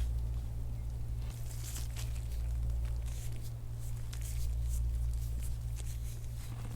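Steady low electrical hum, with faint scratchy rubbing strokes over it from soft-tissue work on the skin of a patient's back, the kind of work that is raising petechiae.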